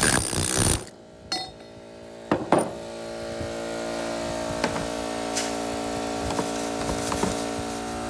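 Pneumatic air hammer with a rock-crushing bit pounding ore in a steel pipe mortar, cutting off abruptly under a second in. After that come a few scattered knocks and clanks of rock and steel as the mortar is handled, over a steady hum.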